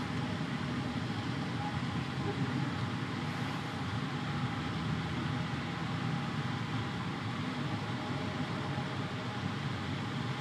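Steady background rumble and hiss with a faint hum, unchanging in level.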